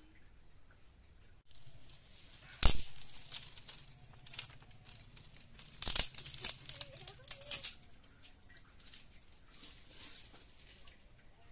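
Thin dry sticks being pulled from a bundle and snapped by hand. There is a single sharp crack about two and a half seconds in, then a loud crack and a quick run of smaller cracks and rustles from about six to eight seconds. A few lighter ones come near ten seconds.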